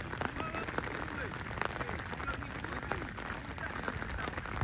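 Indistinct, distant shouts and calls from footballers and onlookers over a steady hiss, with no clear words.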